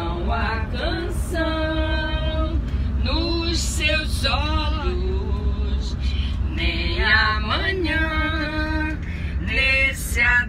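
Women singing a song unaccompanied into a handheld microphone, with long held notes, over the steady low rumble of the moving coach.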